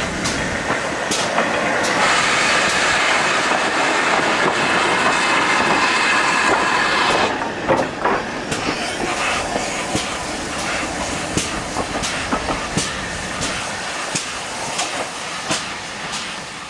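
Steam locomotive running past at close range with a steady rush of noise and steam hiss. About seven seconds in, the sound changes to a train running with regular clicks of wheels over rail joints.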